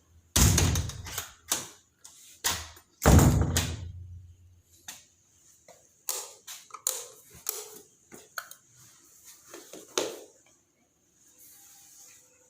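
Two loud thuds, each with a short ringing tail, about half a second and three seconds in, then a run of lighter clicks and knocks.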